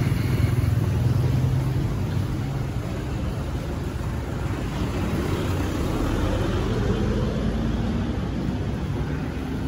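Street traffic: vehicle engines running and passing close by, with one engine's pitch rising about five seconds in.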